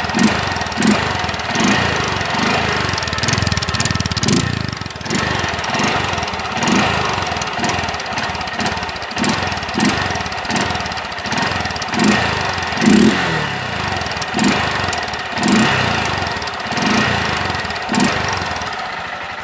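Honda CG 160 Fan's single-cylinder engine running through a tailpipe with a crimped washer hammered into its outlet, blipped in short swells about once a second; the washer gives the exhaust a small extra noise.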